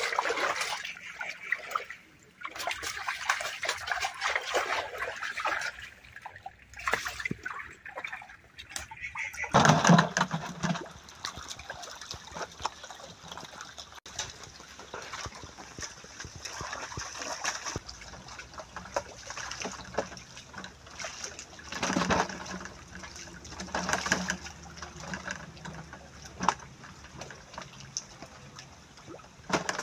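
Shallow water splashing and sloshing, irregular and close, as a mass of eel-like fish thrashes and a man wades in and grabs them by hand. The loudest splash comes about ten seconds in.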